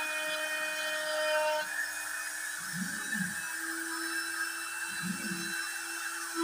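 Router spindle on a homemade CNC machine running at high speed while carving an MDF panel, a steady high whine with two brief swells about three and five seconds in.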